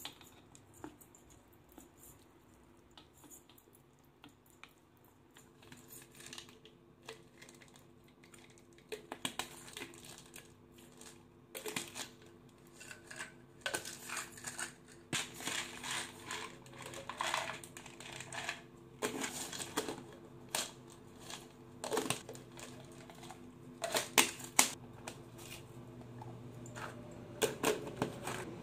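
Plastic supplement bottles being handled and opened by hand: scattered clicks, taps and rustles of caps and containers, sparse at first and more frequent from about a third of the way in, over a faint steady hum.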